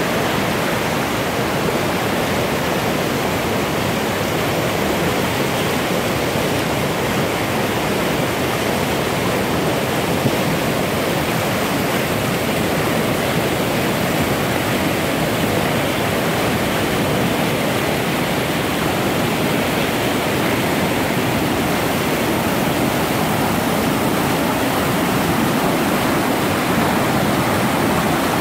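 Mountain river swollen with snowmelt, rushing over rocks and boulders in whitewater rapids: a steady, unbroken rush of water.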